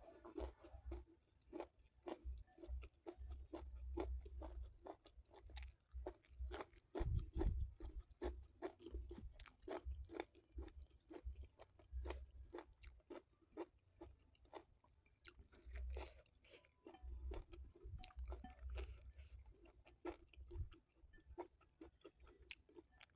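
Close-up chewing of nasi tiwul (steamed cassava rice) with sambal, eaten by hand: steady mouth sounds with many small wet clicks and crunches.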